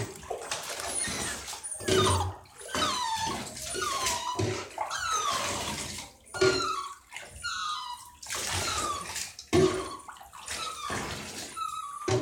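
A puppy in a bathtub whining and crying in many short, falling whimpers, distressed at being bathed, with water splashing and a few dull thuds as it scrabbles against the tub.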